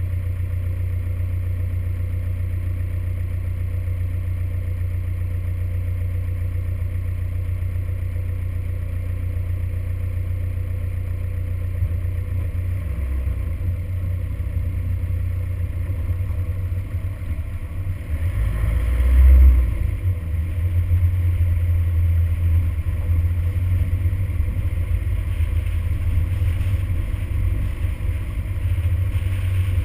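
Toyota Hilux driving along a gravel track: a steady low engine and road rumble. About nineteen seconds in, a brief louder low surge; afterwards the rumble is a little louder and more uneven.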